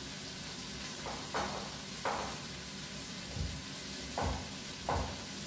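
Kitchen knife cutting smoked tofu into cubes on a wooden cutting board: about five separate cuts knock on the board, roughly one a second, over a steady faint hiss.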